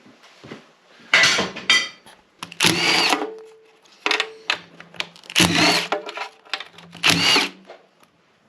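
Power tool spinning out the oil pan bolts on a 360 small-block Mopar engine, in four short runs, each whining up and down.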